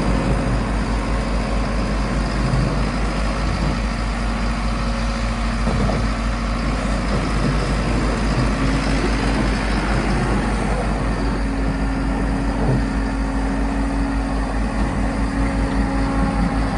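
Volvo MC115C skid steer running while it moves snow: a steady, pulsing engine note, joined about halfway through by a steady higher whine.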